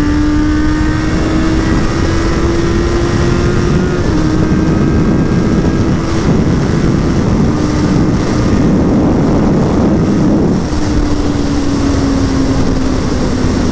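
Suzuki Bandit 600's inline-four engine pulling at high, steady revs while riding at speed. Its pitch climbs slowly, holds, then eases off a little near the end, under heavy wind rush on the microphone.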